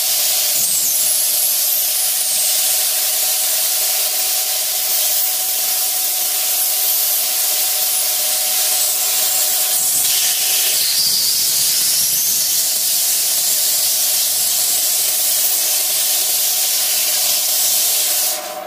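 Homemade bottle-fed sandblast gun blasting abrasive onto masked glass to frost an ornamental pattern: a loud, steady hiss of air and grit with a steady tone underneath. It falls away near the end.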